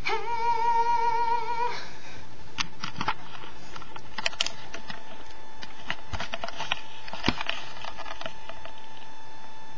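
A person's voice holding one wavering high note for nearly two seconds, then a scatter of clicks and knocks as the webcam is moved about, with a faint steady tone underneath.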